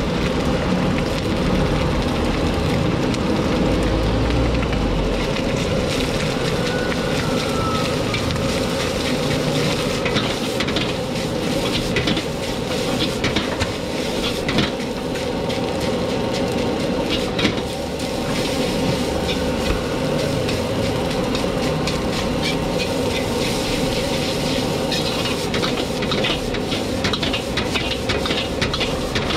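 Egg fried rice sizzling in a hot black steel wok while a metal ladle stirs and scrapes it, with frequent quick clanks of the ladle against the wok.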